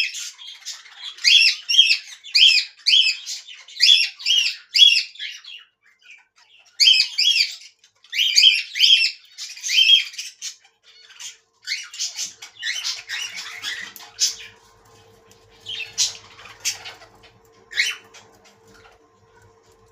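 Budgerigars squawking and chattering in quick runs of harsh calls, thinning to a few single calls near the end. A faint steady hum comes in about two-thirds of the way through.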